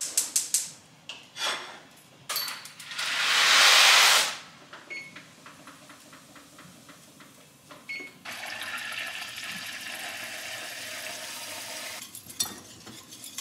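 Stovetop cooking: a few clinks of metal pans, a brief loud hiss about three seconds in, then dry macaroni rattling out of its cardboard box into a metal pot for about four seconds. A few sharp clinks of a utensil against a saucepan near the end.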